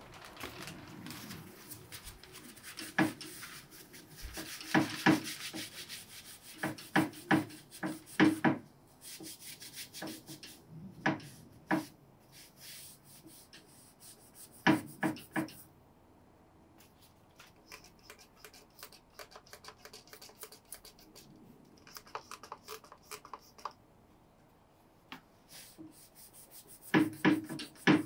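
Paper towel rubbed and scrubbed over a rusty metal spring block, wiping off sprayed degreaser, in uneven strokes with sharp knocks. It goes quieter for several seconds past the middle, then picks up again near the end.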